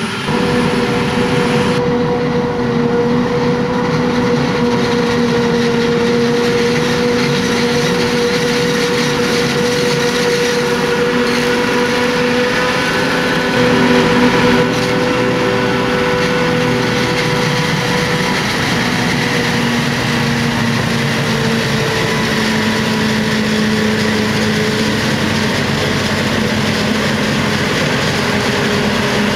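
Claas Jaguar 870 forage harvester running steadily while chopping maize, a constant machine drone with a humming tone, with tractor engines alongside. The level rises briefly about halfway through.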